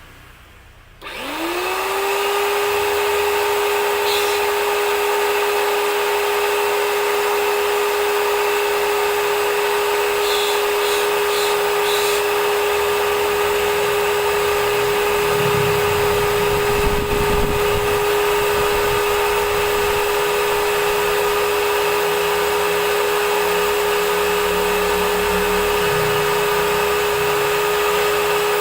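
H&L ABW VGS 70 high-pressure washer, a brush-motor pump, switching on about a second in: the motor runs up to speed quickly and then runs with a steady hum.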